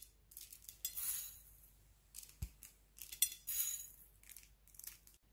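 Silver sugar dragées clicking and rattling against a small glass bowl as pinches are picked out and scattered, in several short, faint bursts of high clinking.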